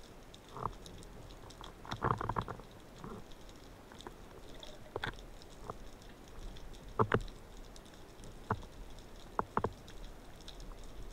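Underwater ambience heard through a diving camera: a faint steady crackle of tiny clicks, with a few louder sharp clicks and knocks, a cluster about two seconds in, a double click about seven seconds in and another pair near the end.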